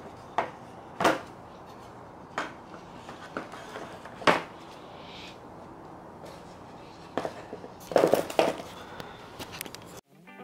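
Radio Flyer wagon's wooden side slats being picked up, flipped and set back down on cardboard over a concrete floor: scattered light wooden knocks and clatters, with a quick cluster of them about eight seconds in. Guitar music cuts in at the very end.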